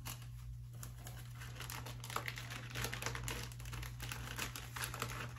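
Plastic packaging of embroidery floss crinkling in quick, irregular bursts as the packs are handled. The crinkling starts about a second in.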